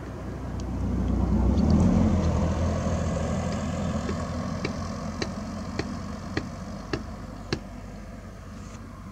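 An engine passing, its low rumble swelling to a peak about two seconds in and then slowly fading. In the second half, a run of about six sharp ticks comes a little over half a second apart.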